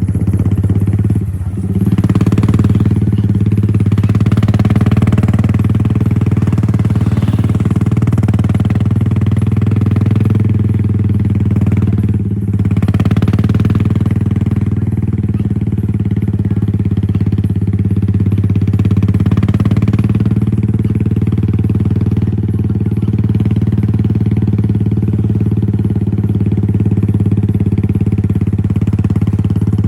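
A loud, steady engine hum that holds an even pitch throughout.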